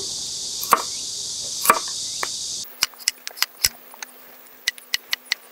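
A chef's knife slicing a carrot on a wooden cutting board. There are two firm chops in the first two seconds over a steady high insect drone. After the drone drops out, a run of quick light knife taps on the board follows, several a second.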